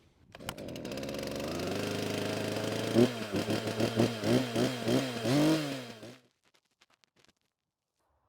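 Stihl MS362 59cc two-stroke chainsaw starting and running steadily for a couple of seconds, then revved in a string of quick blips, about two a second, before it is shut off about six seconds in.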